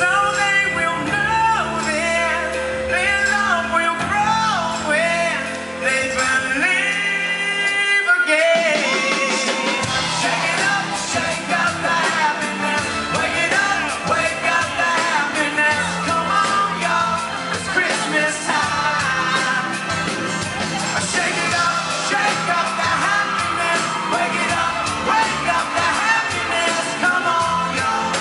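Live pop-rock band with a male lead singer. About eight seconds in, the bass drops out for a couple of seconds, then the full band comes back in with drums and cymbals.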